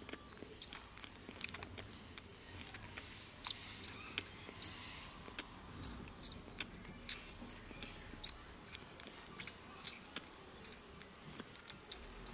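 Wombat joey suckling milk from a bottle teat: a steady run of small wet sucking clicks, about two or three a second.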